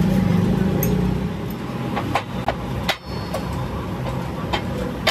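Metal-on-metal clinks and knocks from steel crankshafts and hand tools being handled, about five sharp strikes with short ringing in the second half, over a steady low workshop hum.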